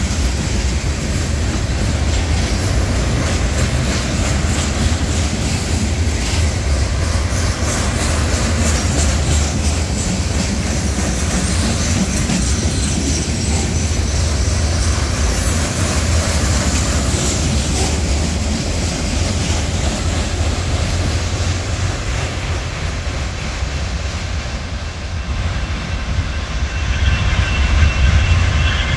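Union Pacific freight train of loaded heavy-duty flatcars and Schnabel cars rolling past over a grade crossing: a steady low rumble of wheels on rail with continuous clicking and clatter. A high steady squeal joins in near the end.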